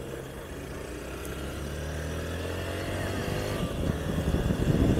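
Honda Bros 160's single-cylinder four-stroke engine pulling under acceleration, its pitch climbing for a couple of seconds, with wind noise on the helmet-mounted microphone growing louder near the end.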